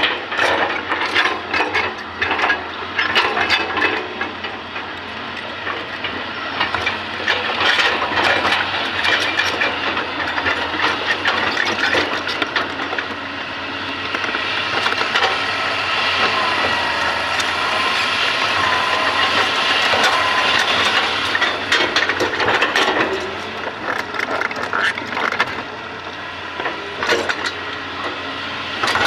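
Hitachi ZX200 hydraulic excavator at work: its diesel engine and hydraulics run steadily, with many sharp cracks and knocks throughout. A wavering whine rises over the engine for several seconds in the middle.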